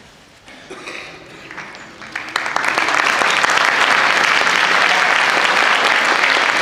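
Audience applauding: a few scattered claps at first, then about two seconds in the full crowd joins in steady applause.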